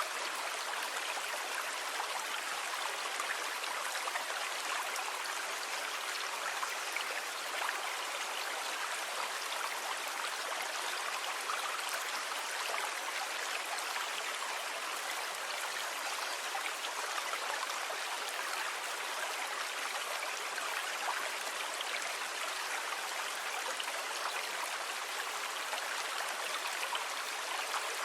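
Steady rush of water, an even hiss with no rise and fall of separate waves.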